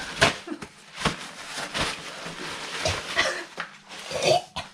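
Irregular knocks and handling clatter from working on a removed washing-machine drain pump and its plastic housing.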